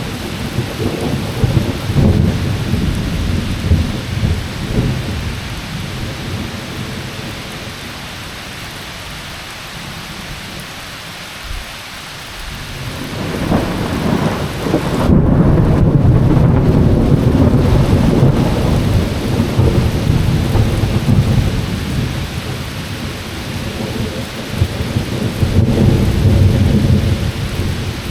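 Thunder rumbling over steady rain. A rolling rumble fades over the first several seconds, a new peal builds about halfway through and rolls on loudly for several seconds, and another swell comes near the end.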